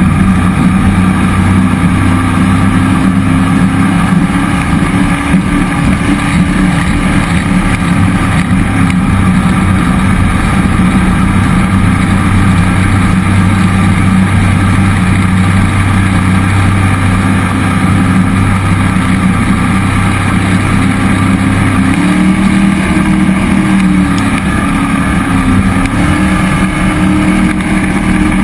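Cammed 5.3L LS V8 in a jet boat with a Berkeley jet pump, running steadily under way. About three-quarters of the way through, the engine pitch rises, dips and rises again.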